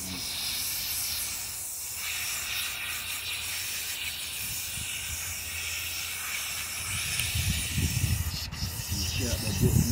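Water spraying steadily from a garden hose nozzle while a wet dog is hosed down. From about seven seconds in, a low, irregular rumbling joins it and grows louder.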